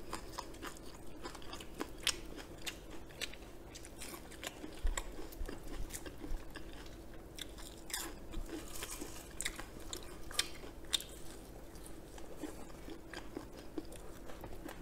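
Crispy fried chicken being bitten into and chewed close to a microphone: irregular sharp crunches of the fried batter between chewing.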